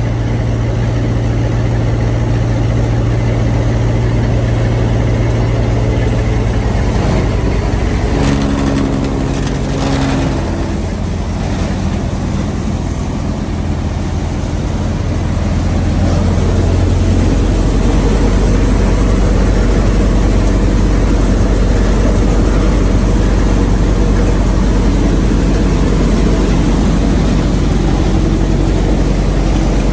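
Vardhman multi-crop thresher and the engine driving it running steadily while threshing wheat, a loud continuous mechanical drone. The pitch shifts around eight seconds, and from about seventeen seconds it settles into a deeper, louder hum.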